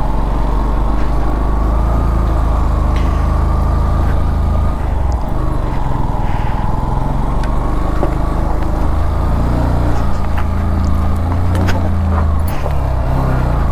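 Motorcycle engine running steadily under load while riding over a rough off-road track, with a few sharp knocks along the way.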